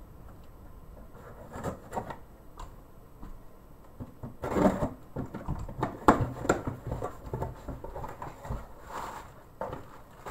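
Unpacking noise from a cardboard shipping box: irregular scraping, tapping and rustling as hands dig into the box and lift out items in plastic bags. The noise is densest from about four to seven seconds in, with another rustle near the end.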